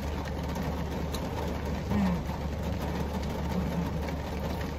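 Heavy rain pelting the roof and windows of a car, heard from inside the cabin as a steady, even hiss over a constant low hum.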